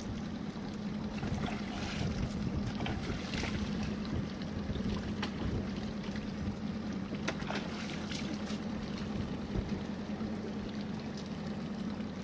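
Boat motor running steadily with a low hum, amid water noise and a few short knocks.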